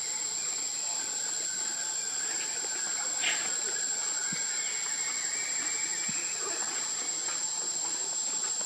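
Steady, high-pitched drone of insects in the forest, with one brief sharper sound about three seconds in.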